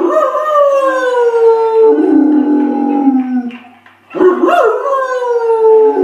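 Dog howling: two long howls, each swooping up quickly, then falling slowly in pitch, with a short break for breath about four seconds in.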